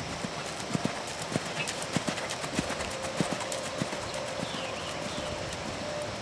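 Hoofbeats of a cantering horse, an off-track Thoroughbred, thudding on sand arena footing, growing fainter toward the end.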